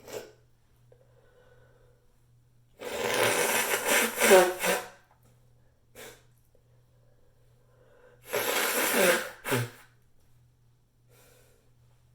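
A person blowing their nose hard twice, echoing in a bathroom: a long blow of about two seconds, then a shorter one ending with a quick extra puff.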